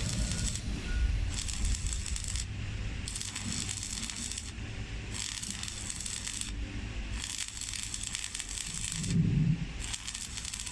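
Electric arc welding crackling and hissing in runs of about one and a half to two seconds, each broken by a short pause.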